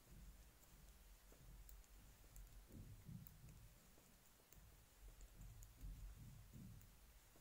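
Faint, irregular clicking of knitting needles as stitches are knit, with soft low rubbing and handling of the yarn and work.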